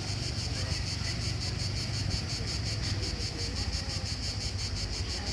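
Cicadas singing in the trees, a steady high, rapidly pulsing drone, over the low hum of a distant quad bike engine.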